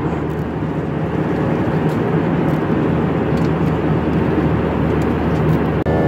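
Steady cabin noise of a jet airliner in flight: engine and rushing airflow heard from inside the cabin beside the engine, with a low steady hum under it.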